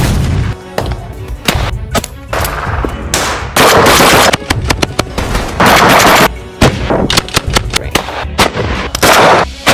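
Gunfire from shotguns and automatic weapons: single shots and fast runs of shots, with two longer, louder stretches of continuous fire, over background music.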